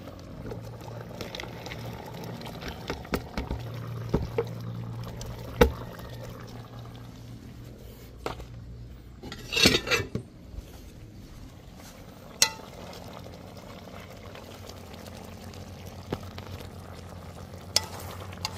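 Sliced vegetables tipped from a plastic bowl into a metal pot of meat and stirred with a metal spoon: scattered sharp clinks and knocks of spoon and bowl against the pot, the loudest cluster about halfway through, over a low steady simmer.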